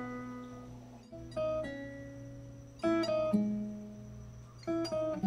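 Background music: an acoustic guitar plucking slow notes and chords that ring out and fade between strokes.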